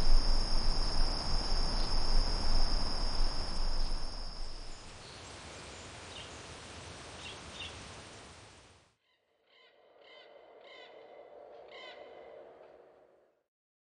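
Nature ambience sound effects: a loud, steady rushing background with a continuous high insect trill for about four seconds, fading into a quieter hiss with a few short bird chirps. After a brief silence, a faint run of repeated bird calls.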